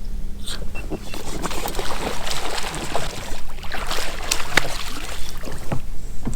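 Crackling, scraping and splashing on a small fishing boat over a faint steady low hum.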